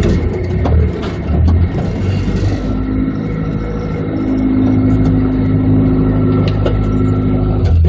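Off-road vehicle's engine running as it drives a rough gravel trail, with rattling and knocks over the first few seconds, then a steady engine note that holds one pitch.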